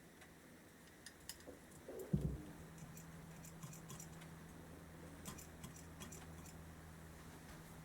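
Light clicks and ticks of small metal carburettor parts being handled and fitted, with a single thump about two seconds in. A steady low hum starts right after the thump.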